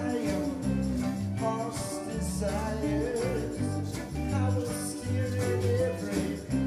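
Live band playing a reggae song, electric guitars and drums under a sung vocal line.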